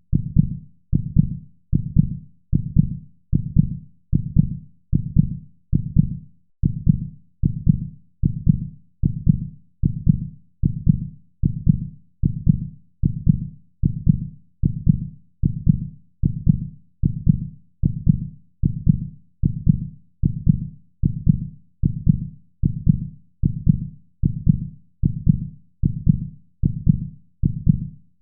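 Heartbeat sound: a steady, evenly spaced rhythm of low, muffled thumps that goes on without change.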